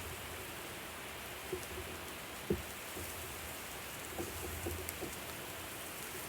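Steady sizzling hiss of food cooking on a barbecue grill, with a few soft knocks.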